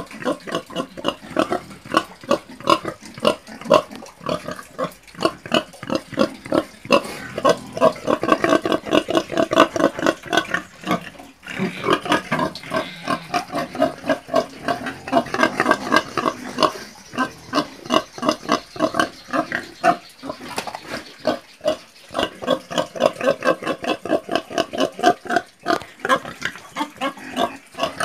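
Pigs grunting in a quick, continuous series, several grunts a second, growing louder and fuller in a couple of stretches.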